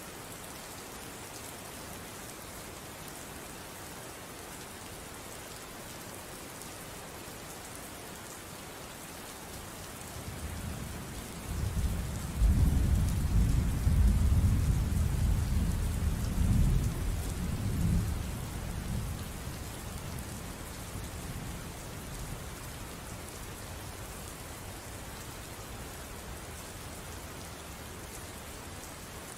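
Steady rain hissing, with a roll of thunder that builds about ten seconds in, rumbles loudly for several seconds and then dies away.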